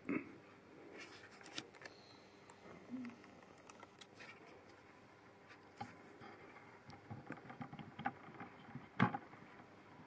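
Faint, scattered clicks, knocks and rustles from hands-on adjustment of a surface grinder's setup, with a louder knock about nine seconds in.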